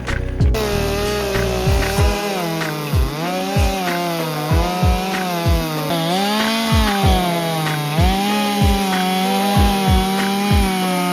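Chainsaw running at high revs and cutting into a log, its engine pitch sagging and recovering as the chain bites into the wood.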